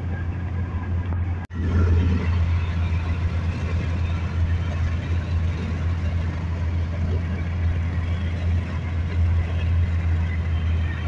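Steady low drone of a car's engine and tyres at highway speed, heard from inside the cabin. It cuts out for an instant about one and a half seconds in.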